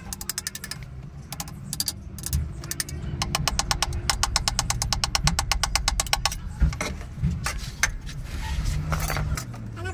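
Rapid mechanical clicking, about ten clicks a second for some three seconds, with a few separate clicks before it and a low rumble underneath.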